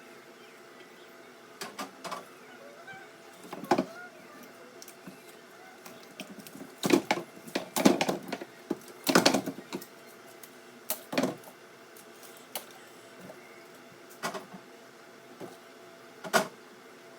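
Irregular knocks, clicks and clatter of food containers and items being handled and set down while organizing a refrigerator, busiest in a cluster near the middle, over a faint steady hum.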